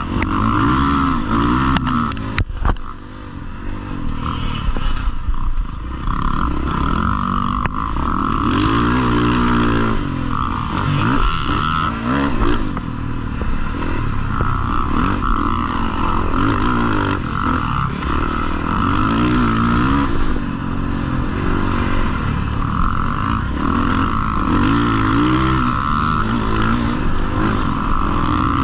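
Husqvarna FC450's four-stroke single-cylinder engine, heard up close from on the bike while it is ridden, revving up and down over and over as the throttle is opened and closed. The engine drops off briefly a few seconds in, then picks up again.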